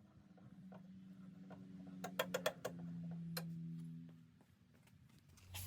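A car jack being worked, with a quick run of about four metallic clicks about two seconds in and one more click a second later, over a low steady hum that swells and then fades near the end.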